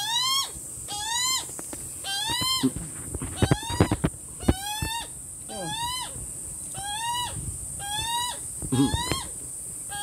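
Juvenile Australian magpie begging for food: a harsh, slightly rising squawk repeated about once a second. A few sharp taps come in the middle.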